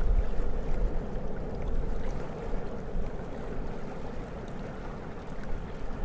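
Strong wind buffeting the microphone in gusts: a fluctuating low rumble, loudest around the first second.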